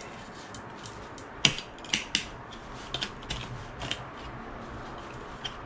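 A series of light clicks and knocks, the sharpest about a second and a half in, as grow-tent and light hardware is handled and shifted back into position.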